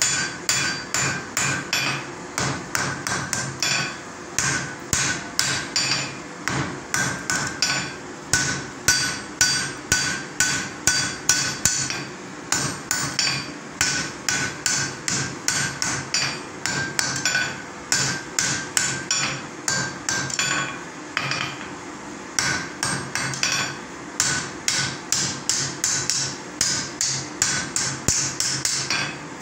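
Hand hammer striking white-hot iron on an anvil in a steady run of blows, about two to three a second, each with a short metallic ring: the iron is being forge-welded at welding heat.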